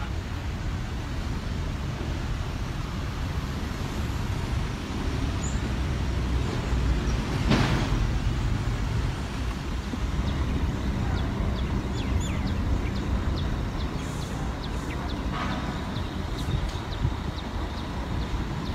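Steady outdoor background noise, a low rumble like distant road traffic, with a brief louder swell about seven and a half seconds in and faint high ticks later on.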